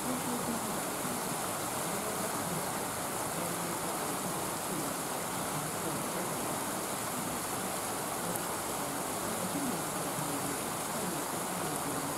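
Steady, even rushing noise with faint, distant voices murmuring underneath.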